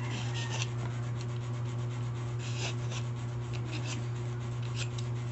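Hand-held vegetable peeler scraping the skin off a bottle gourd (upo) in a series of short scraping strokes, over a steady low hum.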